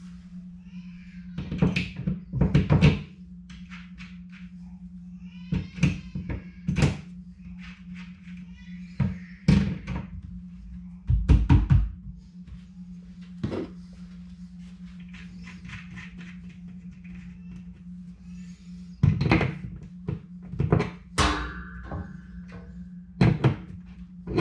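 Knocks, thunks and clicks in several short bursts as shelf brackets are handled and held against a wall. A steady low hum runs underneath, and a short held tone sounds near the end.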